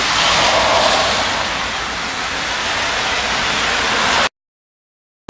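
Water spraying from a hose, rinsing degreaser off a steel K-member: a steady hiss and splatter that cuts off suddenly near the end.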